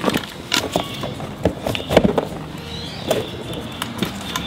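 Irregular metallic clicks and knocks of steel steering parts being handled, a drag link and its end pin and nut knocking against each other. The loudest knock comes about two seconds in.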